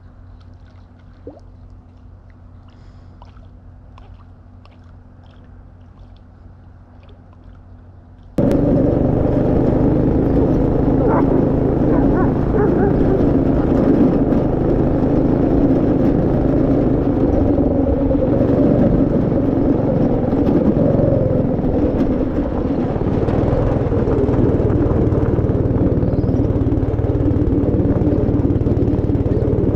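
A quiet stretch with a few faint ticks, then about eight seconds in a sudden cut to a go-kart running along a dirt road: its small engine and the ride make a loud, steady noise with a low hum.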